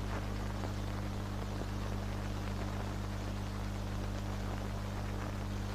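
Steady hiss and low hum of an old film soundtrack, with faint scattered crackles.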